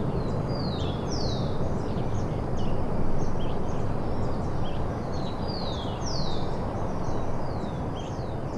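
Several small birds chirping, with many short high notes and a few longer calls that slide downward, over a steady low background noise.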